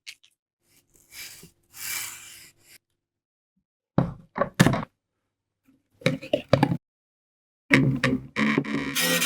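Horror sound effects: irregular clusters of sharp knocks and thuds, after a breathy hiss near the start, then a dense sustained sound with low pitched tones building over the last second and a half.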